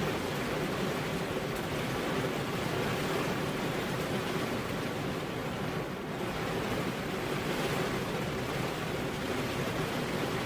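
Rain falling steadily, an even hiss of water with a brief slight dip about six seconds in.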